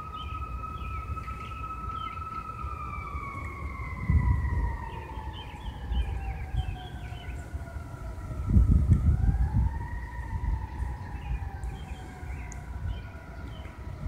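Distant emergency-vehicle siren in a slow wail: its pitch sinks gradually, swings back up about nine seconds in, then sinks again. Wind gusts buffet the microphone, hardest at about four seconds and again around nine seconds.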